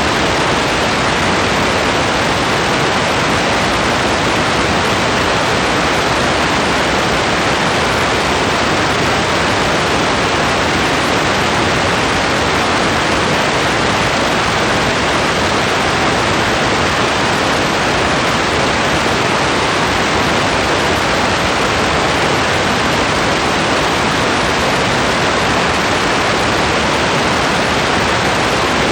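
Steady heavy rain falling on a forest, a dense even hiss of rain and running water with no distinct drops standing out.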